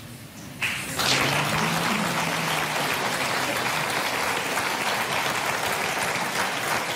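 Studio audience applauding, starting about a second in and holding steady.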